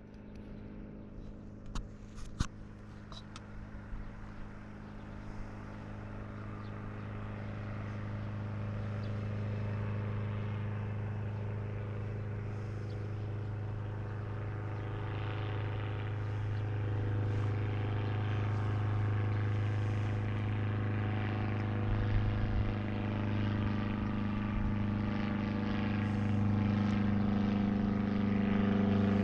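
Propeller engine of a Bagalini Colombo homebuilt light aircraft droning in flight, a steady hum that grows gradually louder as it comes closer. A few short clicks about two seconds in.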